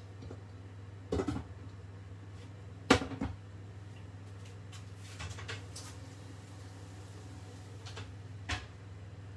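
Kitchenware knocks and clatters: a glass lid set down onto a stainless steel saucepan and a wooden spoon laid on a wooden chopping board, with a few more single knocks later, over a steady low hum.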